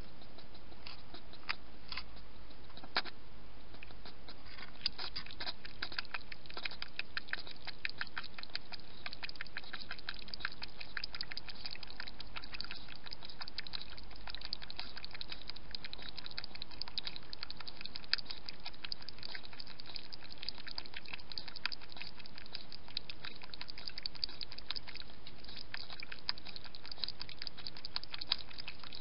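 A wild European hedgehog lapping water from a bowl: a fast run of small wet clicks that starts about five seconds in, after a few scattered clicks.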